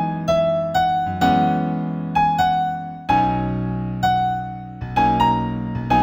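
Piano-toned keyboard playing a slow new-age piece in B major. Melody notes are struck about twice a second over held chords, each note ringing and fading.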